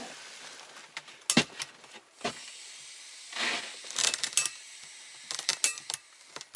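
Gas hissing from a Jetboil camping stove's burner while it is being lit, broken by several sharp clicks.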